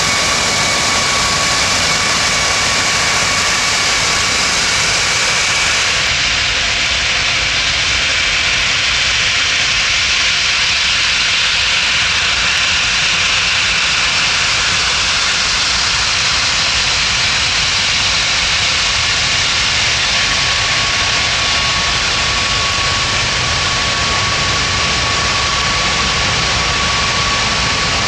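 Aircraft engines running loud and steady: a wide rush of noise with a steady high whine over it.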